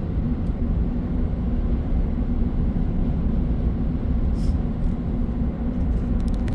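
Steady road and engine noise heard from inside a vehicle cruising on a highway: an even low rumble.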